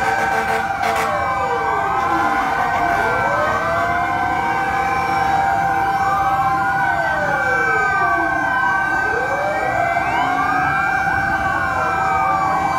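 Several fire truck sirens wailing at once, their rising and falling sweeps overlapping out of step, over a steady held siren tone. They are sounded together in a convoy as part of burial rites.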